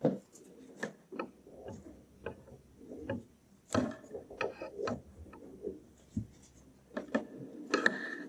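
Handling noise of multimeter test probes and leads being swapped and connected: irregular clicks, taps and rubbing, with a cluster of louder clicks near the end.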